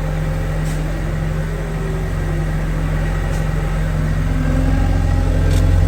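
Diesel engine of a telescopic loader running steadily, heard from inside the cab, growing a little louder over the last two seconds, with a few faint ticks.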